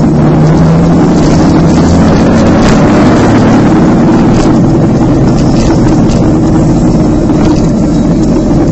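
Motorcycle engine running steadily while riding along a winding road, with wind rushing over the bike-mounted microphone.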